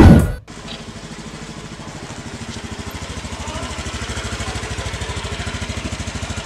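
Small motor scooter engine running with a steady, even putter as it rides along and slows to a stop. Just before it, upbeat intro music cuts off abruptly in the first half-second.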